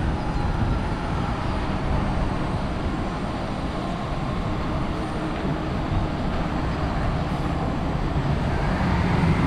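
Steady city street traffic noise, with the low hum of heavy vehicle engines, growing a little louder near the end.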